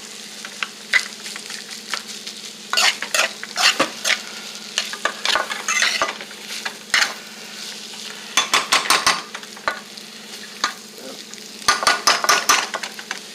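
Fried rice being stir-fried in a pan: a utensil scraping and knocking against the pan in bunches of quick strokes as the rice is moved around, over a steady light sizzle.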